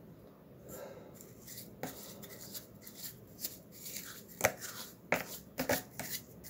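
Stiff-bristled brush scrubbing the oily metal of a vintage Suffolk small engine with cleaning agent: irregular scrubbing strokes, with a few sharp clicks in the second half.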